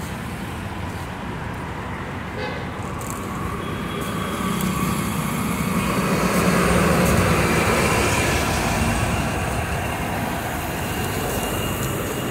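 Road traffic noise, with a vehicle passing close: it grows louder to a peak a few seconds in, then fades back.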